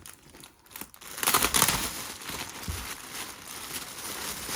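Plastic packaging being crinkled and rustled by hand, starting about a second in with a loud burst of crackling, then continuing more softly.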